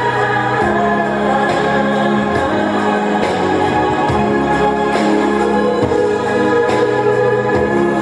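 Music with choir-like singing over long held low notes and a light, steady beat.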